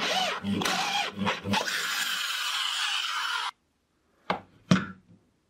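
Twist drill bit cutting through a steel tube under a power drill, a dense grinding noise that wavers in pitch and load. It cuts off suddenly about three and a half seconds in. Two short knocks follow near the end.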